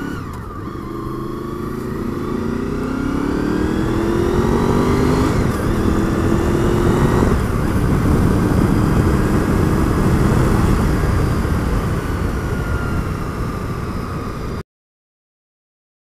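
Honda VFR800's V4 engine accelerating hard, its pitch rising, dropping at a gear change and rising again, with wind rush building as speed picks up. Near the end the sound cuts out suddenly.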